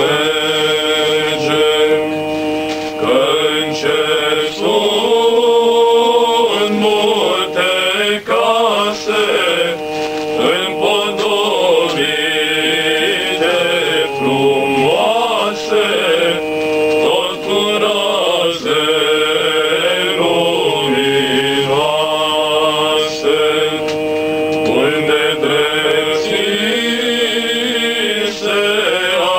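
Male vocal group singing a Romanian carol (colindă) unaccompanied, in a chant-like style. Lower voices hold long steady notes beneath a moving melody line.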